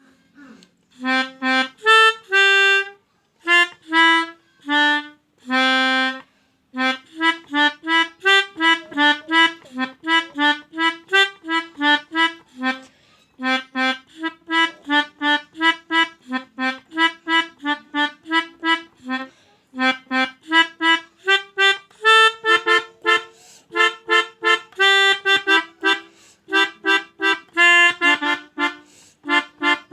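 Telolet horn playing a tooting tune: a few longer held notes first, then quick runs of short, reedy toots at several per second.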